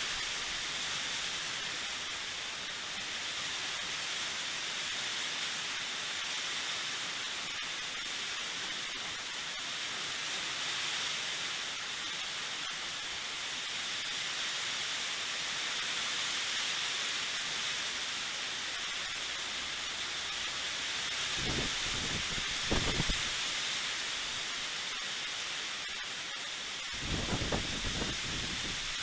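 Steady hiss of falling rain. Two brief clusters of low rumbles break in, one about two-thirds of the way through and another near the end.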